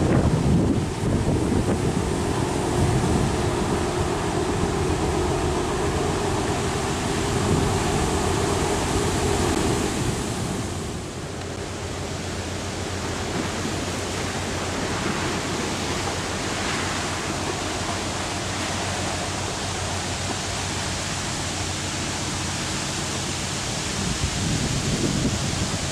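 Steady low drone of a passing car carrier's diesel engines, strongest in the first ten seconds and then fading as the ship moves away, under a constant rush of wind on the microphone.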